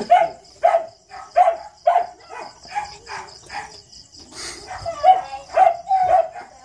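A dog giving short, sharp barks or yips over and over, about two a second.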